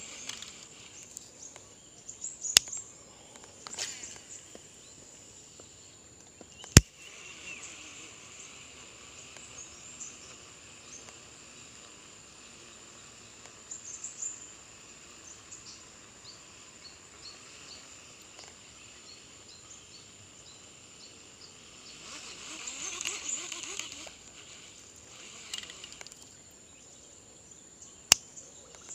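Pond-side ambience: a steady high insect drone with scattered bird chirps, swelling briefly about three quarters of the way through. Three sharp clicks cut across it, the loudest about seven seconds in.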